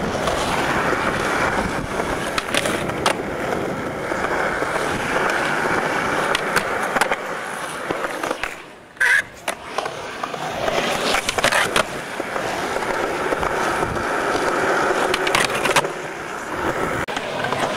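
Skateboard wheels rolling on concrete, a steady rumble and hiss, broken by several sharp clacks of the board. About nine seconds in the rolling briefly drops away before a loud clack.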